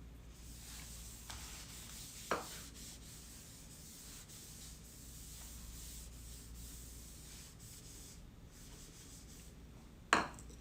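Steady rubbing and scraping as clay trimmings are wiped off a work surface, with a light knock about two seconds in and a louder knock near the end.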